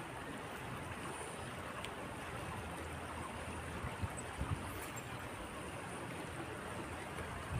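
Steady rush of a river flowing over a stony bed.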